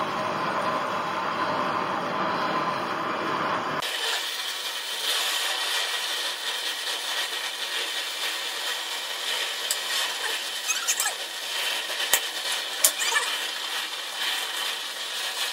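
Gas torch flame hissing steadily while it heats a crucible to melt sterling silver. The low rumble drops away about four seconds in, and a few sharp clicks come through near the end.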